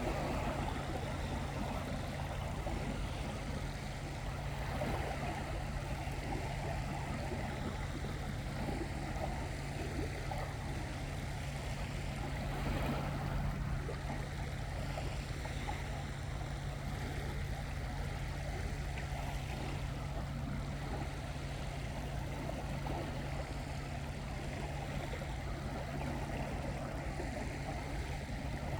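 Steady seaside ambience: water washing over a constant low hum.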